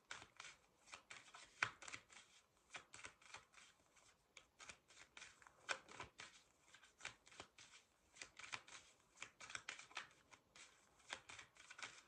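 A deck of tarot cards being shuffled by hand: a quiet, quick run of card flicks and taps with brief pauses.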